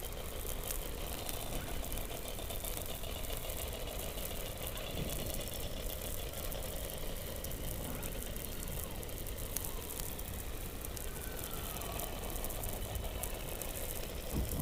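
Underwater sound from beneath the Antarctic ice: a steady noisy background with faint trains of rapid pulses, a short falling whistle about eleven seconds in, and a few sharp clicks, the clearest near the end.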